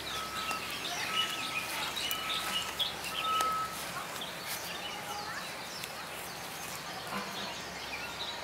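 Small birds chirping and twittering, with a short steady whistled note repeated about once a second through the first three and a half seconds.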